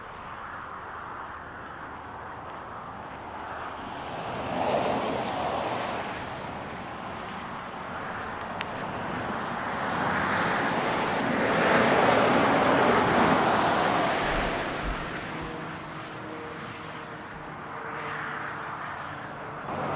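Passing road traffic: vehicle noise swells and fades as traffic goes by, with a short pass about five seconds in and a longer, louder one through the middle.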